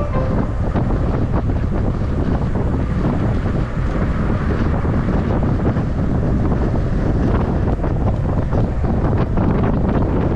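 Wind buffeting the microphone of a mountain biker's camera while riding: a loud, steady low rumble with many small clicks and rattles mixed through it.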